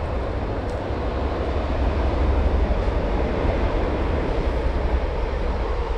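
Passenger train crossing a railway viaduct, a steady rumble and rush of the train running over the bridge.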